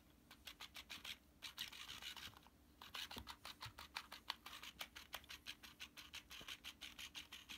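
Rechargeable motorized flopping fish toy beating its tail, a fast run of scratchy ticks against fabric, pausing briefly about a second in and again around two and a half seconds.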